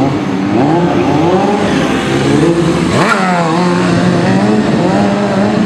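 Motorcycle engine revving up and down repeatedly during a stunt riding display, with a sharp rise in revs about three seconds in.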